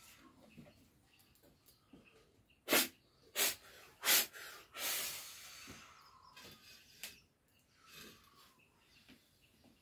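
A person blowing hard out of the mouth: three short, sharp breathy blasts about two-thirds of a second apart, then a longer hiss about a second later, with fainter puffs near the end. These are typical of a healer's blowing during a cleansing ritual.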